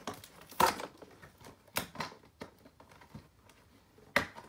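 Toy packaging being handled and pulled open by hand: a few irregular sharp crackles and snaps, the loudest about half a second in and another near the end.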